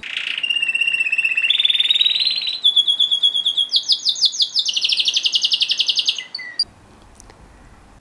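Red-factor canary singing a run of rapid trills, each phrase a fast repeated note at one pitch, the phrases stepping higher one after another. The song stops about six and a half seconds in.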